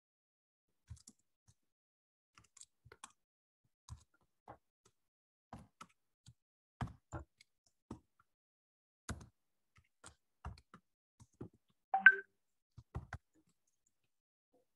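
Computer keyboard keystrokes, typing in irregular clusters of single clicks. About twelve seconds in there is one louder, briefly ringing knock.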